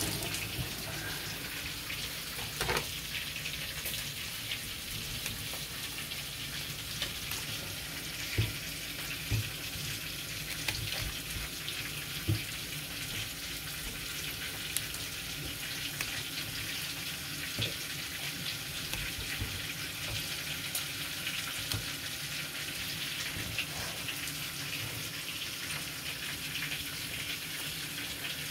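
Kitchen tap running steadily into a stainless steel sink, the stream splashing over broccoli being rinsed, with a few brief soft knocks.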